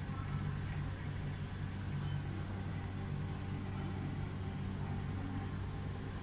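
Steady low hum of indoor room ambience, a continuous machine drone with a light hiss over it.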